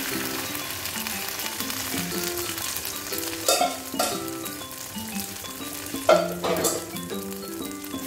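Hot oil sizzling and bubbling as strained chicken stock is poured through a metal strainer onto fried chicken and onions in a pan, with a few sharp knocks.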